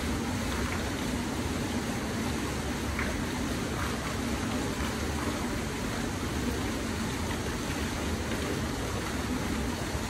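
Fountain water falling and splashing in a steady, unbroken stream.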